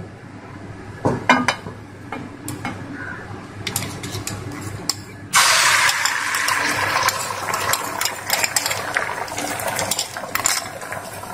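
Mustard oil crackling faintly in a hot frying pan with a few clicks, then about five seconds in a sudden loud sizzle as beaten egg with chopped onion and green chilli hits the hot oil. The sizzle continues steadily, with scattered clicks as the egg is spread around the pan.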